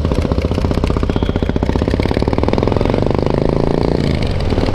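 Motorcycle engine running with a rapid, even firing beat; its pitch drops near the end as the engine slows.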